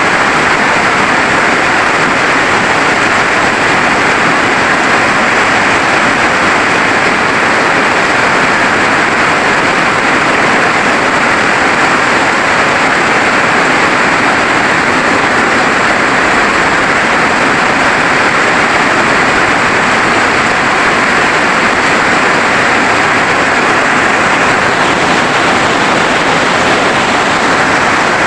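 Heavy rain falling steadily: a loud, even, dense hiss that does not change.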